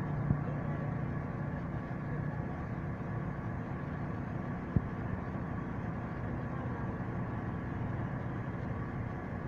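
Engine of a heavy vehicle running steadily with a low hum, with a sharp knock about a third of a second in and a louder one just under five seconds in.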